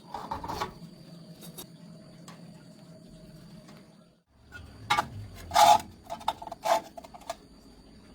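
Several sharp metallic clanks with a short ring, as of steel pieces being knocked together or set down: one about half a second in, then a cluster between five and seven seconds, over a faint steady hum.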